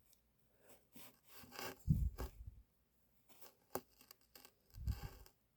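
Handling noise of the Heritage Rough Rider .22 revolver being turned in the hands: rubbing and scraping in two short bursts, about a second in and near the end, with a single sharp click in between.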